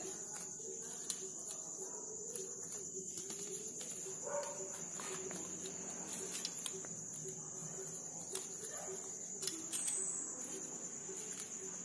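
Crickets trilling steadily at a high pitch, with faint soft taps and rustles of hands handling offering items.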